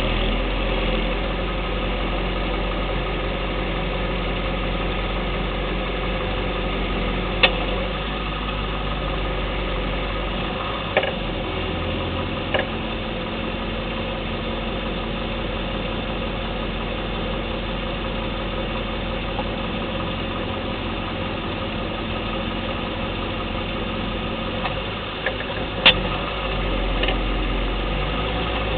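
The Lexus LS 460L's V8 runs steadily, with a handful of sharp single clicks from the suspension at irregular intervals. The owner suspects the lower control arm or the steering knuckle.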